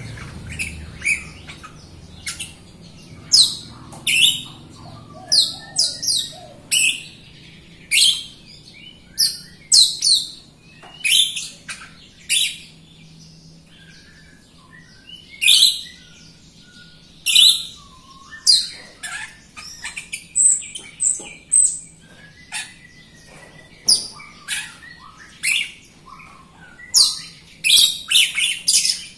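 Caged jalak rio-rio (myna) singing in full voice: a string of short, sharp, high chirps and whistles, one to three notes a second, with a quick run of notes near the end.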